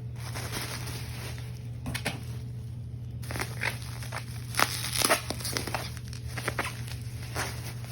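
Packaging being unwrapped by hand: rustling and crinkling with scattered clicks and knocks, loudest about five seconds in, over a steady low hum.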